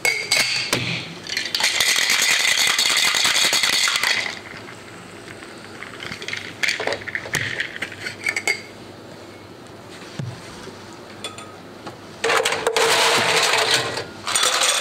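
Ice rattling hard inside a metal cocktail shaker tin as a mojito is shaken, in two bursts of about three seconds and two seconds, the second near the end, with scattered clinks between.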